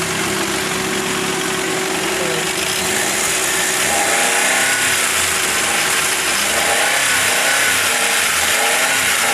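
Maruti Alto 800's freshly rebuilt three-cylinder petrol engine idling steadily, its electric radiator fan running, with a wavering gearbox whine from about three seconds in. The owner puts the gear noise down to oil not yet reaching the fifth gear, and says it stops when the clutch is pressed or the engine is revved.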